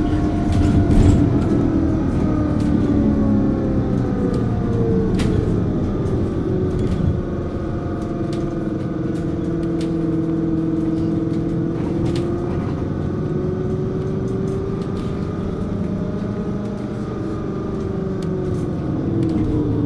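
2009 Hess Swisstrolley 3 articulated trolleybus running between stops, its electric drive whining with a pitch that slowly falls, rises and levels off with speed, over road rumble and occasional clicks and rattles.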